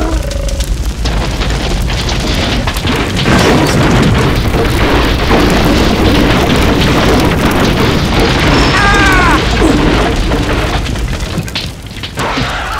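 Film-style explosion sound effects: a heavy boom that runs on as a long, dense rumble, with a brief high cry about nine seconds in.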